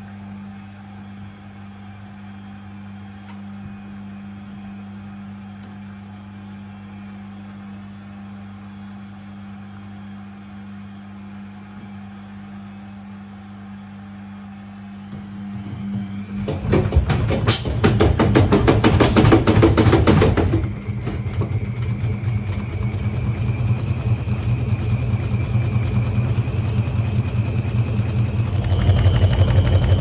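Beko front-loading washing machine spinning an unbalanced load with its door open: a steady low hum, then about halfway through a loud rapid rattling and knocking of the drum for about four seconds, after which it settles into a steady spin with a motor whine that rises in pitch and grows louder near the end.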